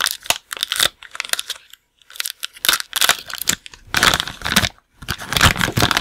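Thin clear plastic bag crinkling and tearing as hands pull it open and draw out a plastic toy part, in irregular crackly bouts with short pauses about a second and a half in and just before five seconds.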